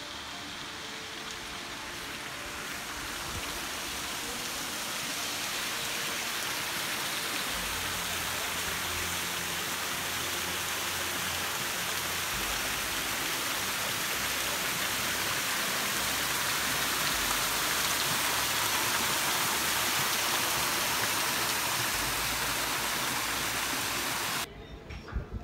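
Water pouring and splashing down the stepped basins of a stone grotto fountain: a steady rushing hiss that grows louder over the first few seconds and cuts off suddenly near the end.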